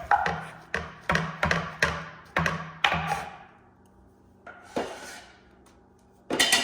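A kitchen utensil knocking sharply against cookware or a board, about two knocks a second for the first three seconds, then a few more near the end, each with a short ring.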